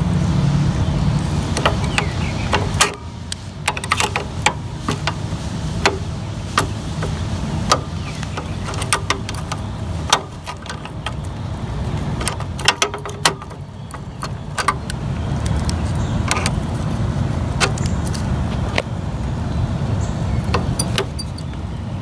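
Hand tools clicking and clinking on metal as pliers work at the shift-linkage pin held by a C-clamp, many short sharp clicks over a steady low rumble.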